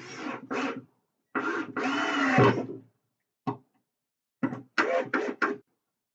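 Cordless drill driving a screw into wood framing: short trigger bursts, then one long run whose pitch rises and then falls off, followed by a quick series of short bursts near the end.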